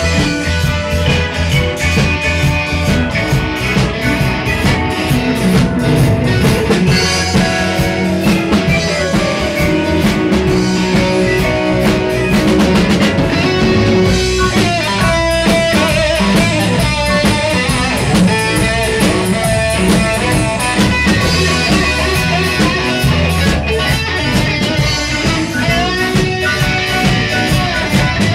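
Live rock band playing: guitar over a drum kit, loud and steady.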